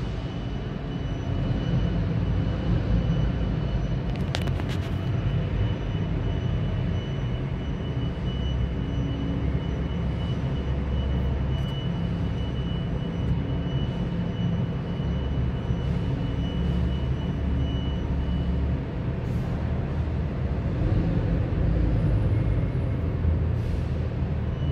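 Neoplan Transliner AN440A transit bus running as it pulls out and turns: a steady low diesel rumble. A brief sharp hiss comes about four seconds in.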